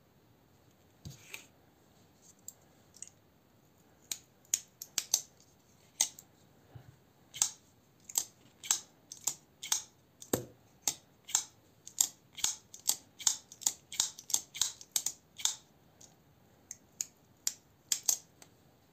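Eafengrow EF966 folding knife being flicked open and snapped shut again and again: a run of sharp metallic clicks, often in quick pairs, coming thick and fast from about four seconds in. The crisp snaps go with a smooth action and no blade play.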